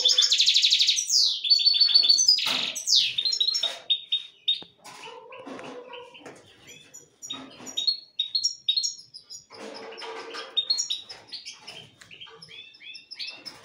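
Caged finches singing and chirping: a loud, rapid trill in the first second or so, then bursts of high chirps and short warbled phrases that grow quieter after about four seconds.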